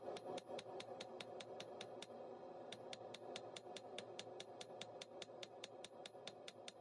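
Hand hammer striking a red-hot steel rod on an anvil, drawing its end out flat. The blows come quickly and evenly, about four or five a second, with a short break about two seconds in.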